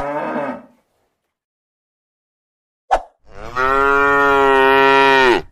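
Cow mooing. The tail of one moo fades out at the start, and after a pause of about two seconds comes a long, steady moo that lasts about two seconds and stops abruptly.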